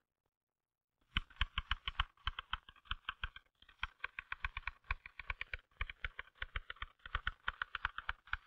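Typewriter being typed on fast and evenly, a continuous clatter of key strikes at about eight to ten a second. It starts about a second in, with two brief pauses.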